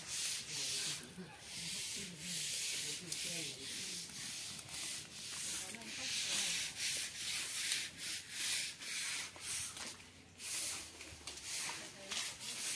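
Footsteps scuffing and crunching on a sandy dirt path at a steady walking pace, about one step a second.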